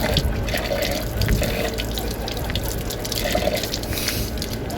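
Floodwater rushing in a steady, heavy flow.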